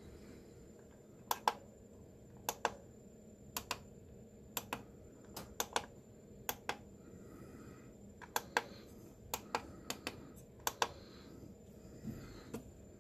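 Newly fitted tactile switches under a Korg M1 synthesizer's front-panel buttons clicking as a finger presses the buttons one after another, each press giving a quick double click, about once a second. Every button now responds, showing the switch replacement has cured them.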